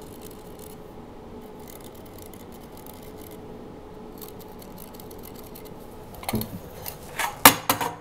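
Faint short scratches of dots being marked on a concrete wall through the holes of a mounted electrical box, followed near the end by several loud sharp knocks and clatters.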